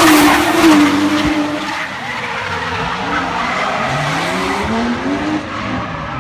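A drift car sliding past close by, its engine at high revs and its tyres skidding, loudest in the first second. The noise then eases as cars drift farther off, their engines revving up and down.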